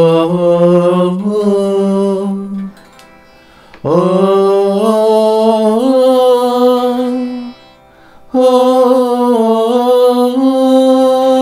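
A man singing three long Arabic vocal phrases into a microphone through a TC-Helicon VoiceLive 3 Extreme vocal effects processor, with an effect switched on. Each phrase slides up into a held note, with a short break of about a second between phrases.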